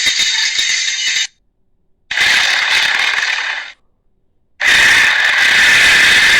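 Made-up dinosaur creature sound effect, edited from a cartoon tyrannosaur's calls: three harsh, high, rasping calls. The first ends about a second in, the second runs for about a second and a half, and the third starts after a gap of dead silence and is still going at the end.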